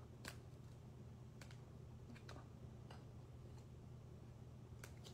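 Very quiet, scattered light clicks and taps of hard plastic card holders being handled and set onto clear display stands, over a low steady hum.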